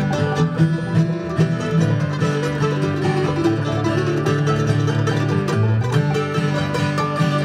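Bluegrass string band playing: banjo picking over upright bass, mandolin and acoustic guitar.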